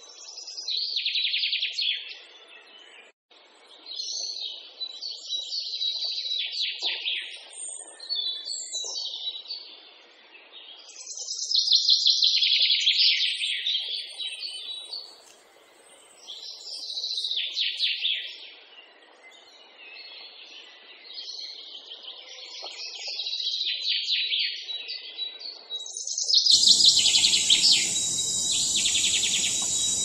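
A small songbird singing: phrase after phrase of quick, high chirps and trills, each lasting a second or two, with short pauses between. About three-quarters of the way through, a steady hiss comes in under the song.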